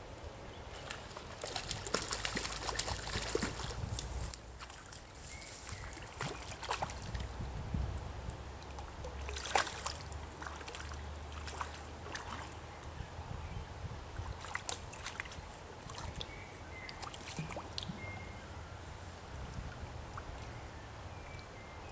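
River water splashing and sloshing in irregular bursts as a hooked small wild brown trout is played and taken in hand at the water's surface.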